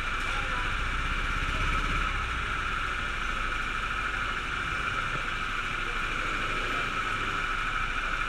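Go-kart engines idling steadily, a constant drone with no revving.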